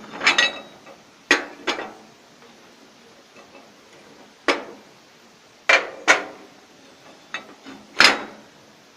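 Metal cooktop rings of a small stove being handled and set down into their grooves on the stove top: sharp metallic clanks with short ringing, about eight in all and often in pairs, the loudest near the end.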